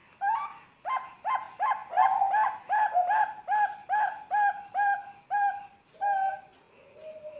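Young zebra dove (Bangkok-strain perkutut), about three months old, calling: a rapid run of short coos, about three a second, for some six seconds, then one soft falling note near the end.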